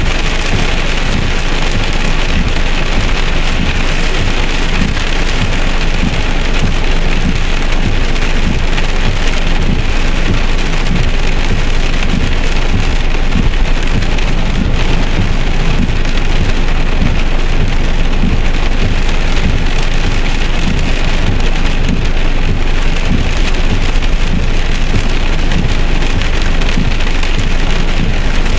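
Heavy rain beating steadily on a car's roof and windows, heard from inside the car.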